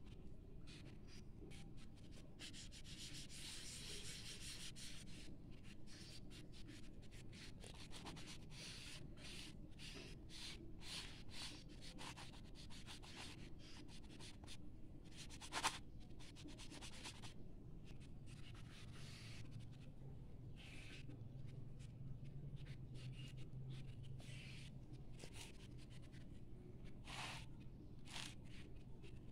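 Oil pastel stick scratching and rubbing on notebook paper in many short, quick strokes as a drawing is coloured in. A sharp click about halfway through is the loudest moment.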